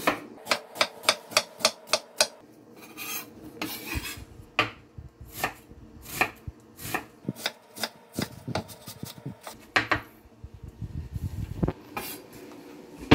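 Chef's knife dicing an onion on a wooden cutting board: quick runs of sharp chops, about three to four a second at first, then more scattered strokes with the blade scraping across the board in between.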